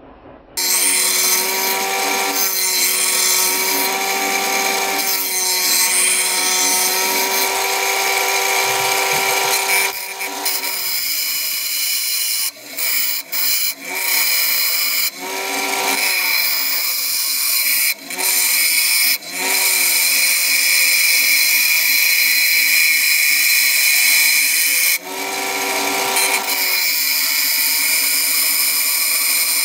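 Einhell bench grinder running with a steel cleaver blade pressed against its abrasive wheel, grinding the blade's profile with a loud, steady hiss over the motor's hum. Several times in the middle the grinding briefly eases and returns as the blade is lifted off and set back on the wheel.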